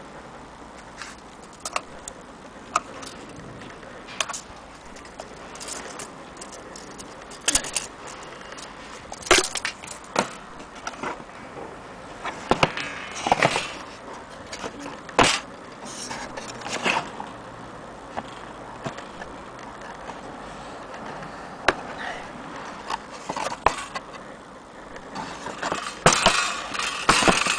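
Irregular clicks, knocks and light metallic rattles from an old wooden clock case and its metal parts being handled, busiest near the end.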